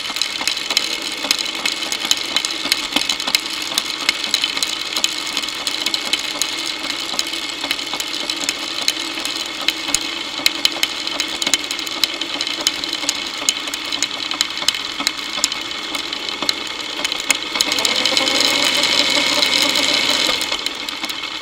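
Motorcycle drive chain running with the engine in gear and the rear wheel spinning on a paddock stand, heard through a contact microphone as a steady mechanical run full of fast clicks and rattles. Near the end the revs rise and it gets louder for a couple of seconds before settling back. The chain is dry and unlubricated; the owner suspects wrong tension, dirt making it grab and jump, or a worn front sprocket.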